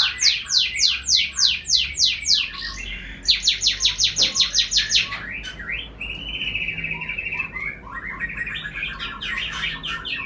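Caged songbird singing: fast runs of repeated downward-sweeping notes, about five or six a second, in two bursts. Then a short buzzy trill, and another rapid run of notes near the end.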